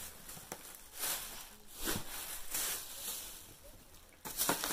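Rustling and handling noise, with a few light knocks, as shopping items are put down and the next one is picked up.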